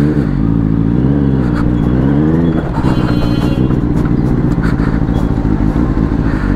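Benelli superbike engine running at low revs as the bike rolls up and stops. The revs rise briefly at the start and again about two seconds in, then settle into a steady idle.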